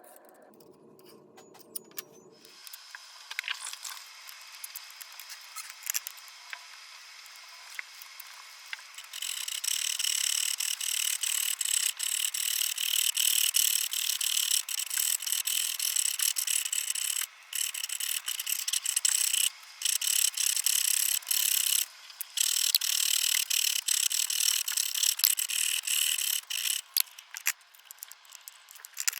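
Abrasive scraping of metal being worked by hand tools on copper sheet: a few light scrapes and clicks, then from about nine seconds in a steady, dense rasping with three short breaks, stopping near the end.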